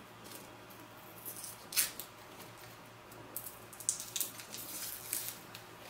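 Light clicks and rustles of a retractable eyeliner pencil's packaging being worked open by hand, the sharpest about two seconds in and a cluster around four to five seconds in.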